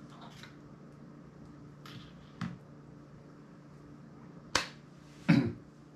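Three short, sharp snap-like clicks: a faint one about two and a half seconds in, then two louder ones about four and a half and five and a quarter seconds in, the last the loudest, over a low steady hum.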